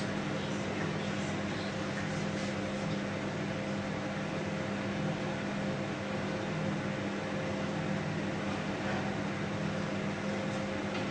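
Microwave oven running at full power in microwave mode: a steady hum with a low drone and a faint higher tone held throughout.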